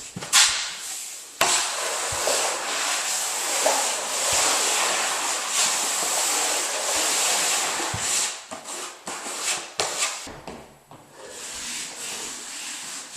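Sheet vinyl flooring being folded back and dragged across the floor: a long rubbing, rustling noise, then several shorter scrapes and knocks a few seconds before the end.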